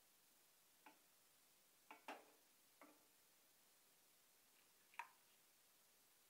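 Near silence broken by a handful of light clinks and knocks from a steel plate and pan being handled: one at about a second in, a quick pair near two seconds, one near three seconds and the sharpest at about five seconds.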